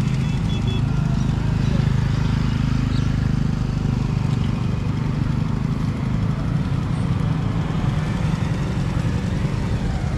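Motorcycle engines running at low revs, a steady low drone with no rise or fall.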